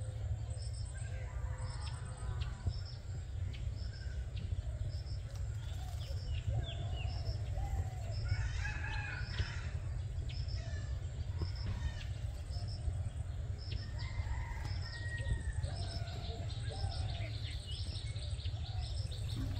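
Birds calling in trees. A short high chirp repeats about twice a second, mixed with assorted other calls, with a louder burst of calls about eight seconds in. A steady low rumble runs underneath.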